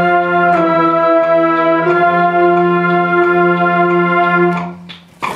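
School concert band of woodwinds and brass holding a sustained chord. The pitches move twice and the band releases together near the end.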